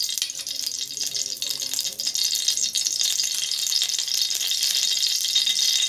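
Desi ghee sizzling with a steady, dense crackle as it heats in a hot aluminium kadhai.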